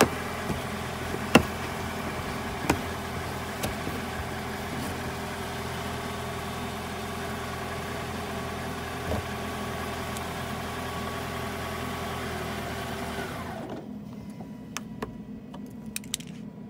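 A car engine idling steadily, with a few sharp plastic clicks as fender-liner push clips are pressed into place. About 13 seconds in, the engine hum falls in pitch and stops, leaving a quieter stretch with a few light clicks.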